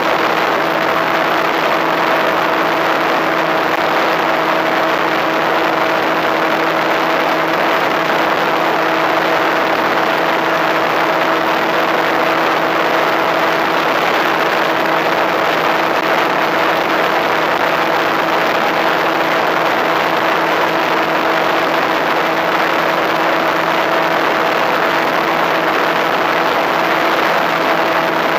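Onboard sound of an FPV Raptor radio-controlled plane in flight. Its electric pusher motor and propeller hum at one steady pitch under a loud, even rush of wind on the camera microphone.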